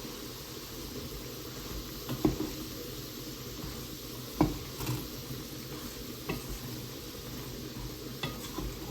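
Food being stirred in a pan with a utensil, with a few sharp knocks of the utensil against the pan, the loudest about halfway through, over a steady low sizzle.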